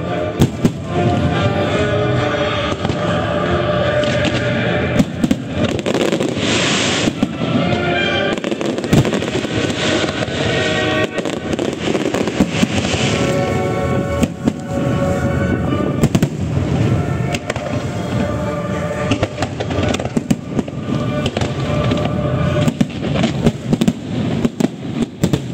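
Fireworks show: aerial shells bursting in many sharp bangs and crackles, irregularly, while music plays throughout.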